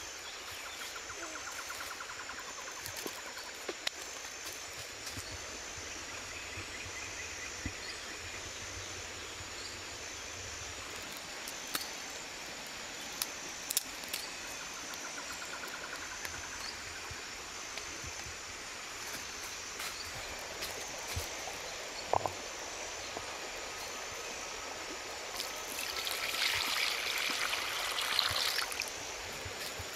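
Steady outdoor ambience with a high, pulsing call repeating throughout and a few sharp snaps. Near the end, water pours from a height into a pan for about three seconds.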